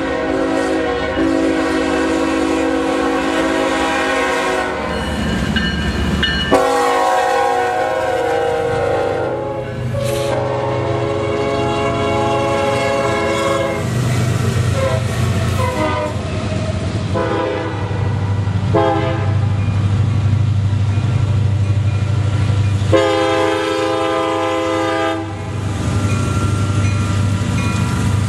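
CSX diesel freight locomotive horns sounding a long series of chorded blasts, some long and some short, for a grade crossing. Under them runs the low rumble of the locomotive diesel engines, heavier from about a third of the way in as a locomotive passes.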